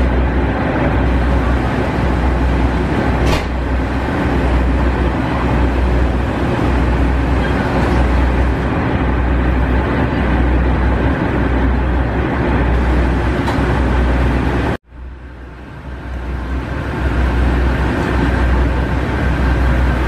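Inside a KiHa 40 diesel railcar, the diesel engine drones steadily along with running noise from the car. About fifteen seconds in, the sound cuts out abruptly, then comes back quieter and builds up again over about two seconds.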